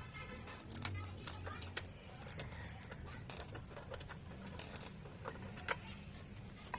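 Scattered light metallic clicks and taps of hand tools and small metal parts being handled while working on a lawn mower engine, with two sharper clicks near the end.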